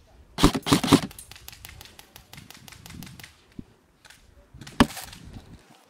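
Airsoft gunfire: a loud burst of rapid shots about half a second in, then a run of quieter, evenly spaced rapid clicks, and another single sharp shot near the end.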